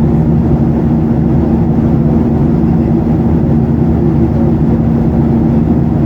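Steady cabin noise inside a Boeing 737-800, heard from a window seat: a constant rumble of engines and airflow with a steady hum running through it.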